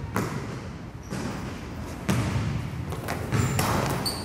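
A basketball bouncing on a hardwood gym floor, sharp thuds about once a second that echo in the hall. Short high sneaker squeaks come near the end as the players move.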